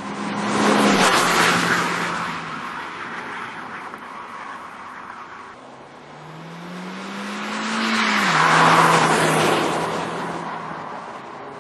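SEAT Leon Cupra R driving past at speed twice, its engine note dropping in pitch as it goes by each time. Before the second pass the engine note climbs steadily as the car accelerates toward the microphone.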